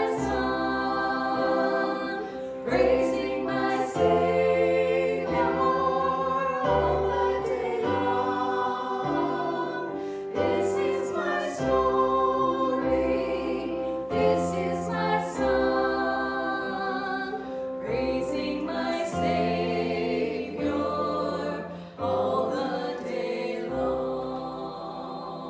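A group of voices singing a worship hymn over sustained chords and a slowly moving bass accompaniment, getting quieter near the end.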